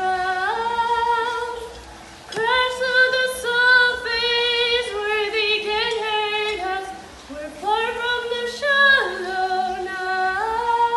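A woman singing solo in long held notes with vibrato, sliding between pitches, in three phrases with short pauses between them.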